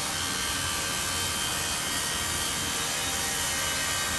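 Small right-angle disc sander running steadily, its abrasive pad rubbing across the surface of an aluminum propeller blade to sand out nicks and marks. The sound is an even hiss with a faint high whine.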